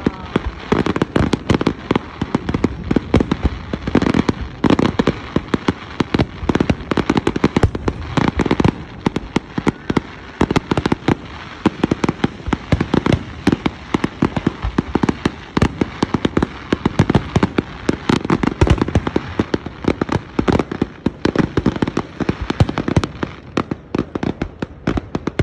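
Aerial fireworks display: shells bursting in a rapid, continuous run of bangs and crackles, many per second.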